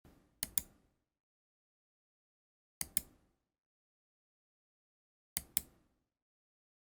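Logitech MX Master 3 computer mouse button clicking: three pairs of sharp clicks, the two in each pair about a fifth of a second apart, the pairs coming about every two and a half seconds.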